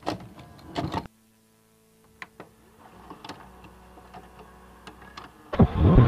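Mechanical clicks and clunks of a VCR loading a tape, used as a sound effect: two loud clunks in the first second, a short silence, then scattered clicks over a faint steady hum. Near the end a loud, warbling sound cuts in.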